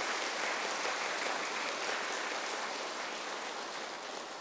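Audience applauding steadily, a crowd clapping that slowly fades near the end.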